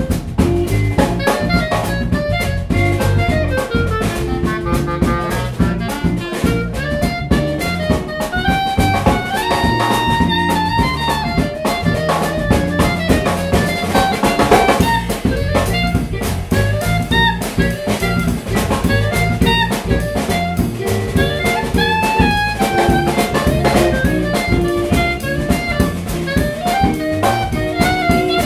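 Small jazz band playing live: clarinet playing a melodic line over electric guitar, electric bass and drum kit.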